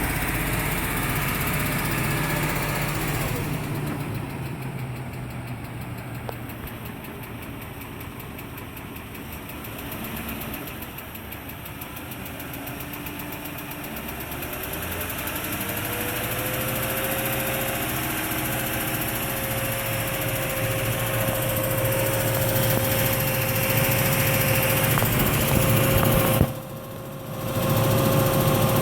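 2003 Range Rover HSE's BMW-built 4.4 L M62TUB44 V8 running at idle with a ticking noise, which the owner puts down to a hydraulic tappet. A whine rises and then holds steady about halfway through, and the sound drops out briefly near the end.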